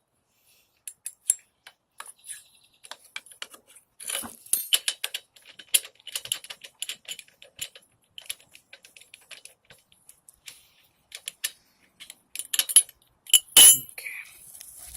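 Spark plug remover tool clicking and clinking against metal on a lawnmower engine as the spark plug is worked loose, with a louder knock near the end.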